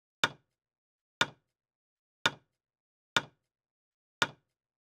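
Countdown timer sound effect ticking: five short, sharp ticks about one second apart.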